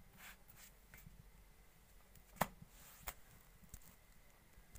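Wood fire in a clay chulha crackling faintly, with scattered small clicks and two sharp pops about two and a half and three seconds in.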